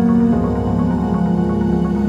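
Background music: calm electronic ambient track with held synth tones and soft plucked notes.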